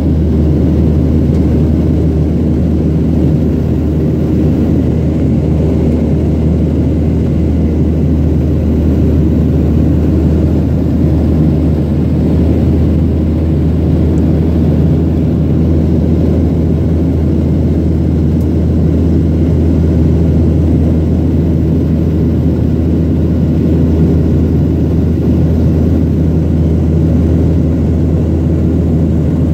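Steady, unchanging drone of an airplane in flight, heard inside the passenger cabin: deep, even engine and airflow noise.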